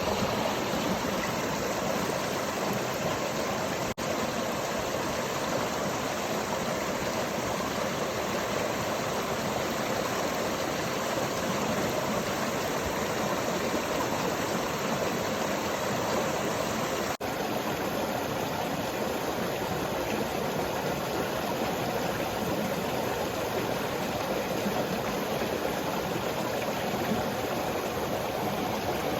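River water rushing steadily, an even, continuous flow noise, broken twice by a momentary dropout.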